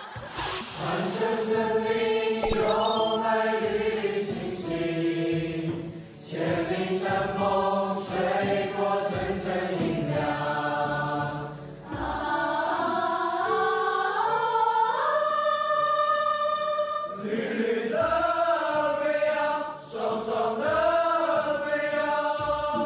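Music with voices singing slow, held notes, choir-like, in phrases a few seconds long. The melody climbs step by step in the middle.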